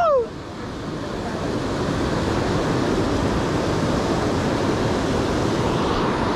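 Sea surf washing over the boulders of a rocky breakwater, a steady rush with wind buffeting the microphone. A brief shouted voice is heard right at the start.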